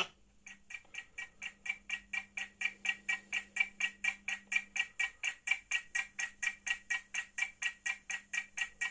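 A rapid, even series of short pitched ticks, about four to five a second, over a faint steady hum.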